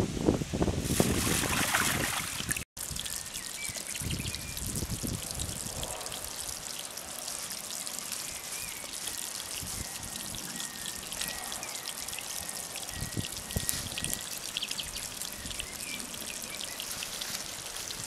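Brief rustling and handling noise, then a block of white cooking fat melting in a pan over embers, sizzling steadily with fine crackles.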